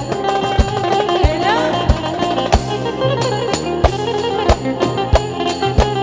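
Live Turkish arabesk band playing an instrumental passage of the song: a low drum stroke about every two-thirds of a second with darbuka rhythm under a melody line with quick rising runs.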